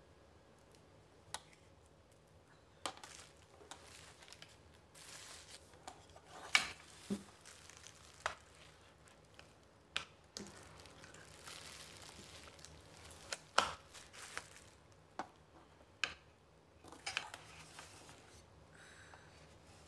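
Hands handling a display turntable and small parts: scattered sharp clicks and taps with stretches of rustling.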